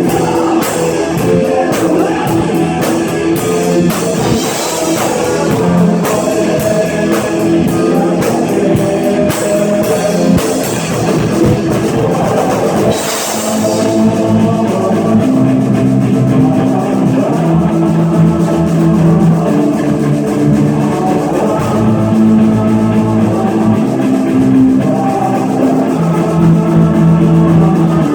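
Rock band playing live: electric guitar over a drum kit, with steady cymbal hits through the first half. About thirteen seconds in a crash gives way to held guitar notes with much lighter cymbals.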